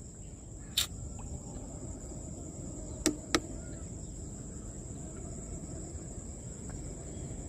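Riverside ambience: a steady, high-pitched insect drone over a low rumble, broken by a sharp click about a second in and two more in quick succession just past three seconds.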